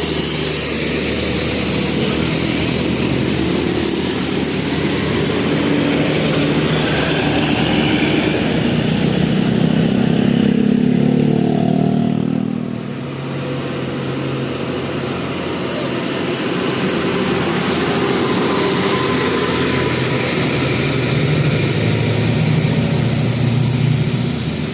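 Bus engine and road traffic running steadily. About halfway through, a vehicle swells and passes with its pitch falling, then the sound drops briefly.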